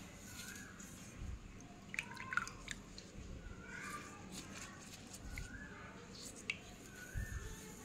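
Wet crushed slate pencil pieces squished and crumbled in a hand over a bowl of slurry, with dripping and a few sharp crackles. Short calls from an animal repeat in the background every second or two.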